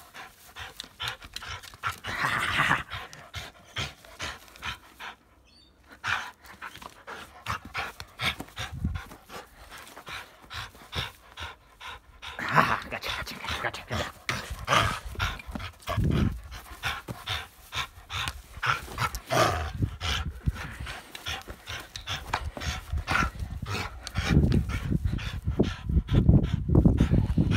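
Dog panting rapidly and hard while it tugs on a rubber ring toy, with close handling and rustling noise. A louder low rumble comes in near the end.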